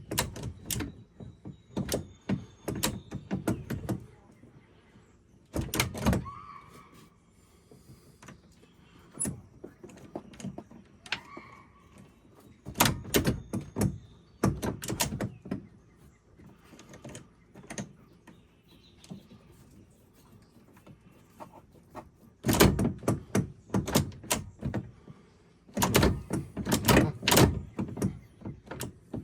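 Repeated clunks and clicks from the newly fitted gear shifter and shift linkage of a 2006 Yamaha Rhino 660 being worked back and forth through its gears, in clusters of quick knocks separated by quiet pauses.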